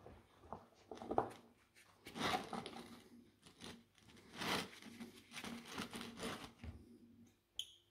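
Irregular rubbing, rustling and scraping of gloved hands handling cables and 18650 lithium-ion cells on a workbench, with a short sharp click near the end.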